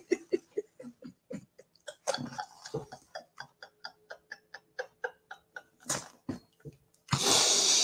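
A woman laughing almost silently: short breathy gasps and clicks come several times a second. Near the end comes a loud, drawn-out breath.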